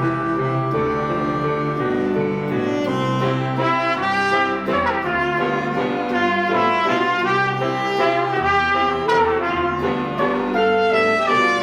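Instrumental music with brass melody lines over a steady bass.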